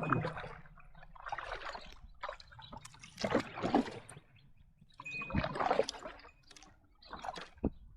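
Kayak paddle strokes: the blade dipping into and pulling through the water with splashing and water trickling off it, several strokes a second or two apart.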